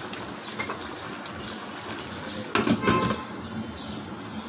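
Chicken curry bubbling steadily in a karahi as its tomato liquid cooks down. About two and a half seconds in, a short clatter of a few knocks with a brief ring as a glass pan lid is set on.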